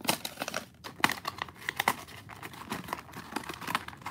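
Plastic blister packaging of a die-cast toy car being handled and opened, giving irregular clicks and crackles.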